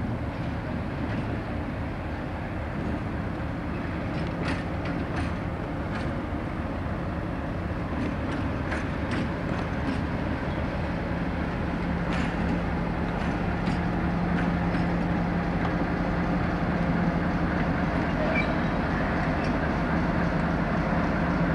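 Class 56 diesel-electric locomotive's Ruston-Paxman V16 engine running with a steady low hum, growing gradually louder as the locomotive moves in close. A scattering of light clicks sounds over the first half.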